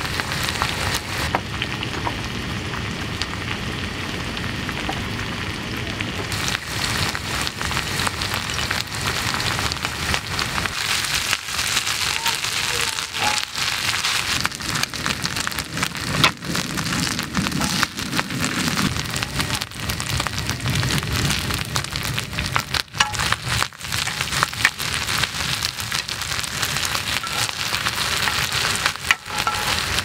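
Kimchi fried rice sizzling on a round griddle, a steady frying hiss. From a few seconds in, the hiss is joined by frequent clicks and scrapes of a wooden spatula stirring on the pan.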